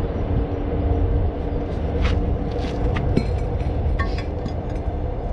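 Steady low mechanical rumble with a faint steady hum, broken by a few light clicks about two, three and four seconds in.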